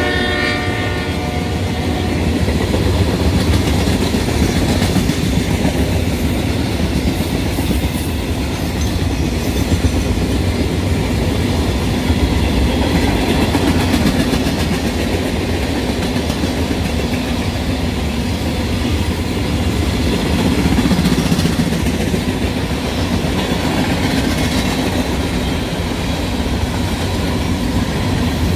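Union Pacific manifest freight train rolling steadily past at close range: the cars and wheels on the rails make a continuous loud rumble and rattle. A train horn, from a locomotive out of view, fades out about a second in.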